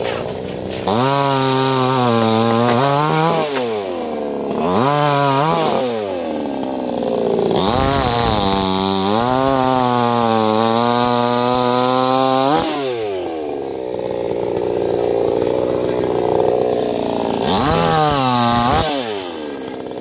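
HP 60cc two-stroke gasoline chainsaw cutting through a mango tree branch, revved up in four bursts and dropping back toward idle between them. The longest cut runs about five seconds through the middle.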